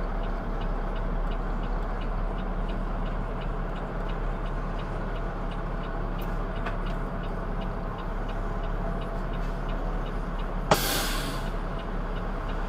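Truck engine running steadily, heard from inside the cab, with a faint tick about twice a second like a turn signal. About eleven seconds in there is a sudden short hiss of air from the truck's air brakes.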